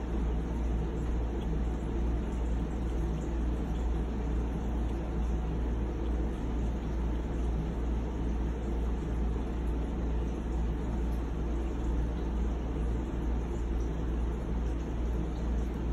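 A steady low machine hum under a constant rushing noise, unchanging throughout.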